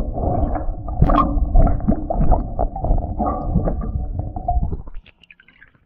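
Horse drinking from a water trough, heard from under the water's surface; the sound stops suddenly about five seconds in.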